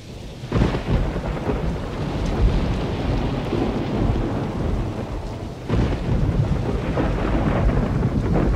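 Thunder rolling over steady rain, with a swell of rumble about half a second in and another a little past halfway.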